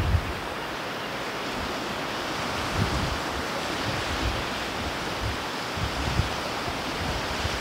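Ocean surf washing steadily against a rocky shore, with wind buffeting the microphone in low gusts every second or two.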